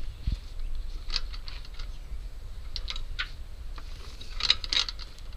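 A rope being wrapped and tied at a boat trailer's winch stand: light rustling and clicking in three short clusters, about one, three and four and a half seconds in.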